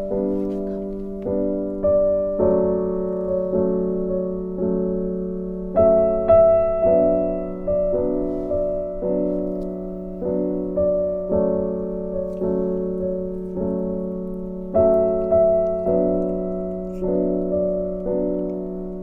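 Background piano music: a gentle melody of single struck notes, about one a second, each fading before the next.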